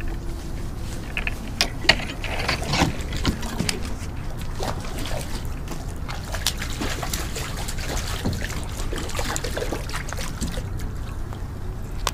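Water splashing and trickling close by as a hooked crappie is worked to the kayak, with scattered small clicks and knocks over a steady low rumble.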